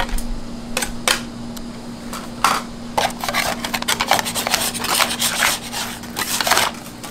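Metal dough knives scraping and clicking on a steel candy table as a slab of hot hard candy is scraped up and folded, in a run of irregular short scrapes.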